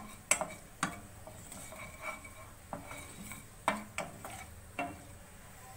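A wooden spatula stirring whole spices in a little hot oil in a nonstick pan, scraping across the pan with several sharp knocks against it.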